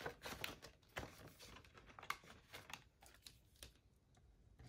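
Faint, quick rustles and light taps of paper banknotes being handled and tucked into a vinyl cash-binder pocket, quieting near the end to a few light ticks as a pen writes on paper.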